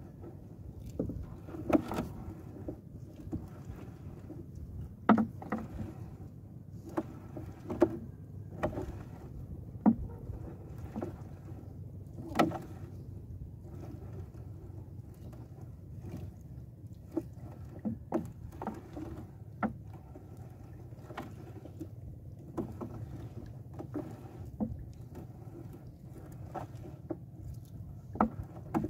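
Fishing net being hauled in by hand over the bow of a wooden outrigger boat: irregular knocks and clatters every second or two over a steady low wash of water.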